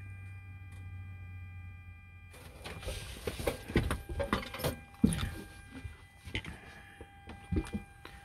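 Steady electrical hum with faint high whining tones in a Boeing 737 flight deck running on DC battery power. About two seconds in the low hum drops away, and a run of irregular rustles and clicks follows.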